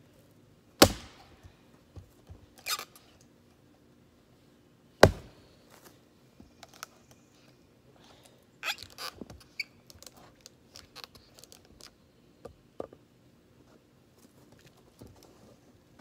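Axe chopping into an upright log on a chopping block: two sharp, loud strikes about four seconds apart. These are followed by a run of quieter knocks and cracks as the axe is worked in the wood and the split pieces are handled.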